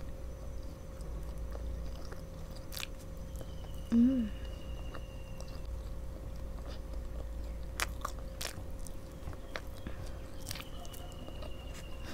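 Close-miked chewing of soft marshmallows: quiet sticky mouth sounds and scattered lip clicks, with a short hum from the eater's voice about four seconds in.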